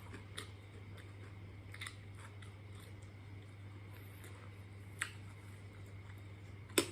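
A person chewing and biting crunchy food close to the microphone. Scattered short crunches and mouth clicks come through, the loudest just before the end, over a steady low hum.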